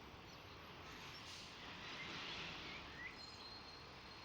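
Steady outdoor background noise with a few faint bird chirps, one about three seconds in.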